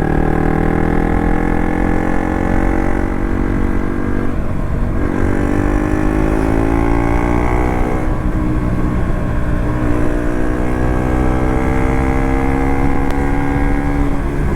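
KTM RC 200's single-cylinder engine pulling under way, its pitch climbing through the gears with short breaks for gear changes about four and a half and eight seconds in.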